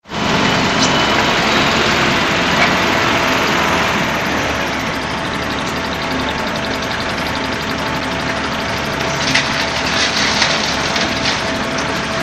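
Engine of a concrete mixer pump running steadily, with a brief spell of rattling clatter about three quarters of the way through.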